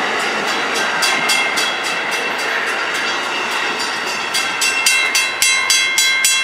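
Amtrak Superliner passenger train rolling past, a steady rush of wheel-on-rail noise. After about four seconds the rush thins as the last car pulls away, and a clanging bell comes through, striking about three times a second.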